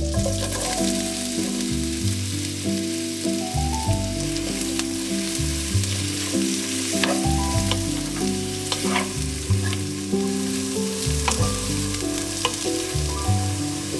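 Sliced onions sizzling in butter and oil in a nonstick frying pan, stirred with a wooden spatula that scrapes and taps against the pan a few times. Soft background music with sustained notes plays underneath.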